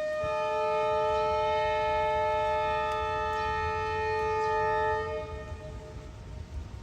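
Train locomotive's horn sounding one long, steady blast of several notes at once, lasting about five seconds before tailing off, over a low rumble.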